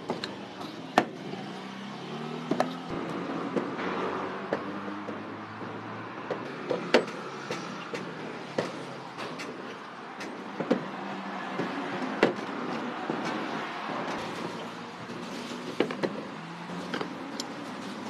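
Food-stall prep sounds: sharp knocks and clinks of utensils and dough work on a metal prep table, about eight over the stretch, over a steady background din.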